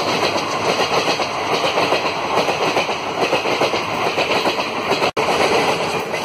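Passenger coaches of an express train running through at speed, their wheels clattering over the rail joints in a loud, continuous rush. The sound cuts out for an instant about five seconds in.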